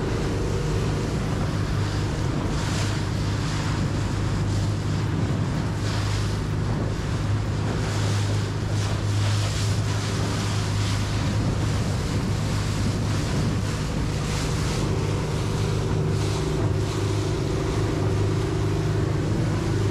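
A rigid-inflatable boat's engine running steadily under way, with water rushing and splashing against the hull in a choppy sea every two or three seconds, and wind on the microphone.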